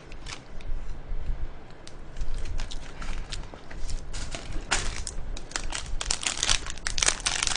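Thin plastic macaron wrapper crinkling as it is handled and peeled open, a run of crackles that comes in clusters, busiest about five seconds in and again toward the end.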